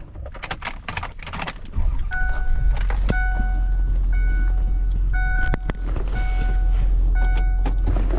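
A few clicks and rattles, then a car engine starts about two seconds in and runs with a steady low rumble. Over it a pitched electronic tone repeats roughly once a second.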